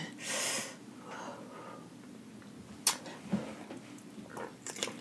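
Close-miked eating sounds: a short breath near the start, then scattered wet mouth clicks and smacks as a sauced shrimp is bitten into and chewed near the end.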